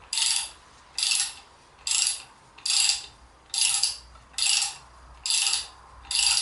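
Socket ratchet being worked back and forth to unscrew the backup light switch, giving a burst of pawl clicks on each return stroke. There are eight bursts in a steady rhythm, a little under a second apart.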